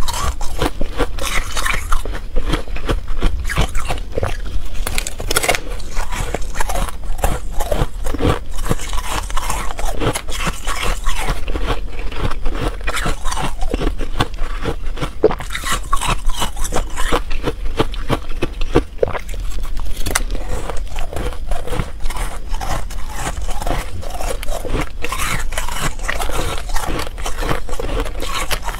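Close-miked crunching and chewing of a mouthful of refrozen freezer frost: a dense, continuous run of small crisp crackles. Near the end a spoon scrapes and scoops through the frost in a plastic tray.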